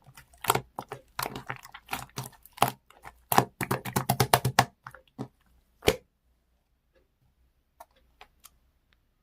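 Marbled slime being squished and pressed by hand, giving a quick run of wet clicks and pops. The clicking stops about six seconds in, and a few faint clicks follow near the end.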